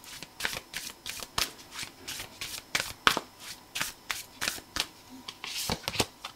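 A deck of cards being shuffled by hand: a rapid, irregular run of papery flicks and snaps that stops near the end.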